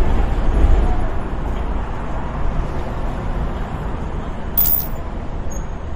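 Road traffic noise: a steady low rumble of passing vehicles, with a short high hiss a little past the middle.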